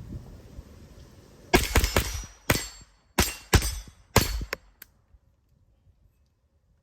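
JP-15 .22 LR semi-automatic rifle firing about six quick shots in under three seconds, starting about a second and a half in, followed by a couple of faint ticks before it goes quiet.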